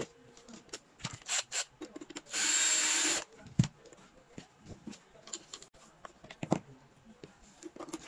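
Clicks and knocks of metal fingerprint-lock parts being handled and fitted to a door, with a power tool running steadily for about a second near the middle, the loudest sound.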